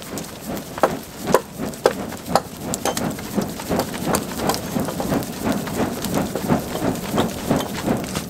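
Footsteps crunching through snow at a steady walking pace, about two steps a second.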